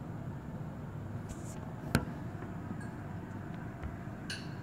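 Steady dull rush of a rain and hail storm heard from indoors, with one sharp tap about two seconds in and a short ringing clink near the end.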